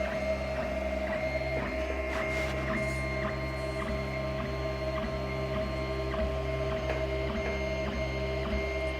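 3D printer running a print: its stepper motors whine in steady tones that shift in pitch about every half second as the moves change, over a low hum.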